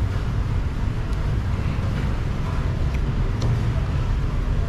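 Steady low rumbling background noise, with a few faint clicks of cutlery on a plate.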